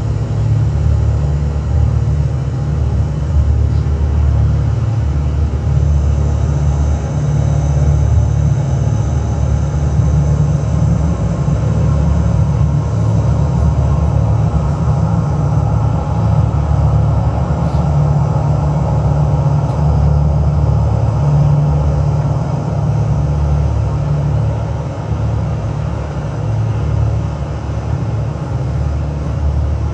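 Live electronic drone music from a laptop and mixer: a loud, dense, steady low rumble with a hissing haze above it and no beat, easing off a little after about twenty-five seconds.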